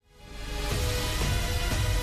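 Background music fading in over the first half second, with held tones and a steady low beat.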